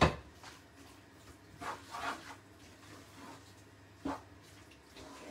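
Spoon stirring chicken pieces in a thick marinade in a non-stick frying pan: soft, wet scraping and squelching, with a short knock about four seconds in.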